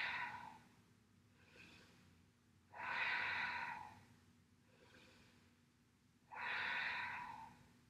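A woman's slow, audible breathing: three long, loud breaths about three and a half seconds apart, with fainter breaths between them.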